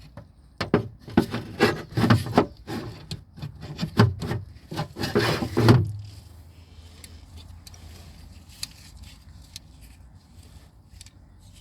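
Hand work on a car door's lock mechanism: a quick run of scraping and knocking strokes for about six seconds, then only faint handling ticks.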